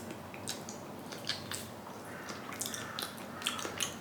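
Close-up wet chewing, with irregular moist clicks and smacks of mouth and food.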